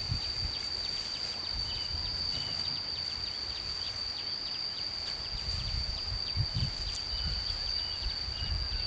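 A steady high-pitched drone, like insects calling outdoors, with faint rapid ticks and a few short chirps.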